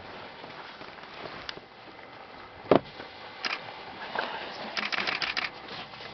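Elephants moving in a wet mud wallow: scattered wet clicks and slaps of mud, with one louder thud a little before the middle and a quick run of clattery clicking about two-thirds of the way through.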